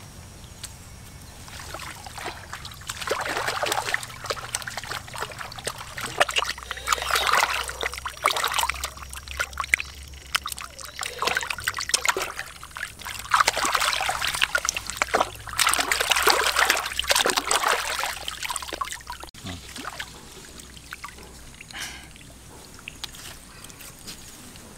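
Water splashing and trickling as hands rinse a snake in shallow muddy water, coming and going in several spells of sloshing.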